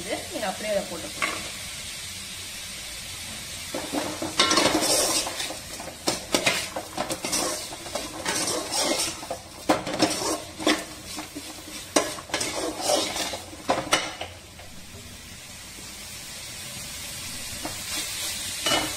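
Chopped vegetables and soaked green peas sizzling as they fry in a metal kadai. From about four seconds in to about fourteen seconds in, a perforated metal ladle scrapes and clinks against the pan as they are stirred; after that the sizzling carries on more quietly.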